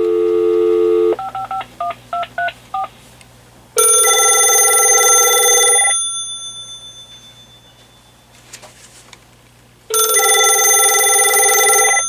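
Cordless phone on speakerphone: a dial tone, about seven keypad touch-tones as a number is dialed, then a telephone's electronic ringer ringing twice, each ring about two seconds long and about six seconds apart.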